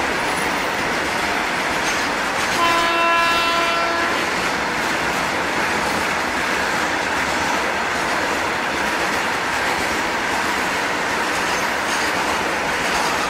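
Loaded tank wagons of a freight train rolling past close by: a steady rolling noise of steel wheels on rail. A train horn sounds once, about two and a half seconds in, for a second and a half.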